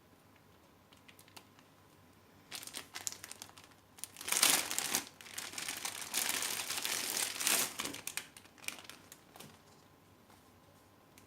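Packaging being handled and rustling, in a few short scrapes at first and then a longer, louder stretch through the middle that dies away before the end.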